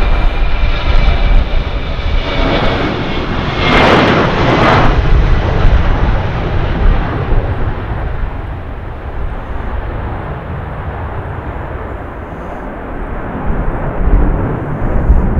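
Boeing 717's twin rear-mounted Rolls-Royce BR715 turbofans at takeoff power through the takeoff roll and climb-out. A whine of steady tones sits over the jet roar at first, the sound is loudest about four seconds in, and it then settles into a low rumble as the high whine fades away.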